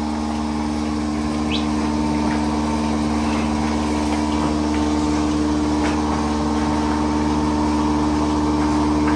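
Milking machine's vacuum pump running with a steady hum while the cups are on the animals, with a few faint clicks.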